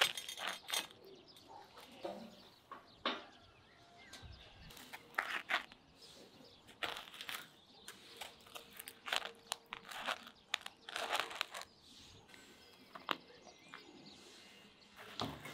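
Irregular sharp clicks and knocks, several a second in clusters, with faint bird chirps in the background.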